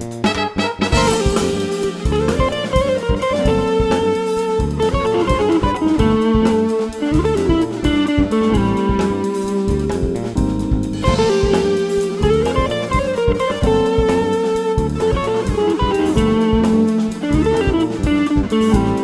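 Live funk-jazz band playing an instrumental: electric guitar to the fore over electric bass and drum kit, in a steady groove.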